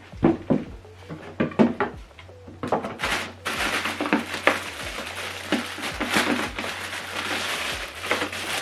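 Unboxing handling noise: a few sharp knocks and clatters of items being set down and moved, then a longer stretch of packaging being rustled and crinkled as the next part is pulled out.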